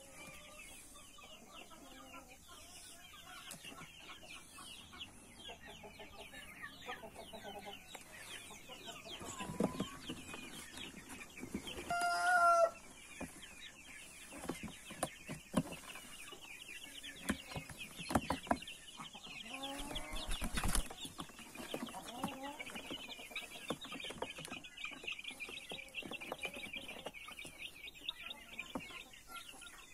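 Month-old chicks peeping constantly in quick, high chirps, with adult chickens clucking around them and one louder, longer call from a chicken about twelve seconds in. Scattered knocks and rustles of the cardboard box being handled.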